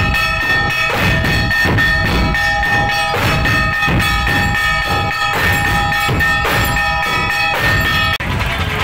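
A dhol-tasha troupe playing: many large dhol drums beaten with sticks in a steady, fast rhythm, with a bright metallic ringing held over the beat. The drumming cuts off abruptly near the end.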